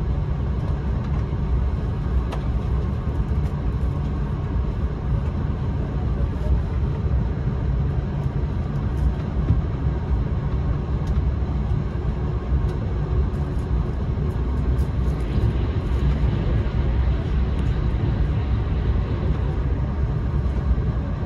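Running noise of an E4 series Max double-decker Shinkansen, heard from on board at speed: a steady low rumble with faint scattered ticks.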